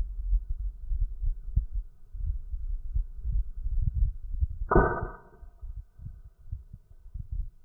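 Wind buffeting the microphone in uneven gusts. About two thirds of the way in comes a single sudden ringing sound that dies away within about a second.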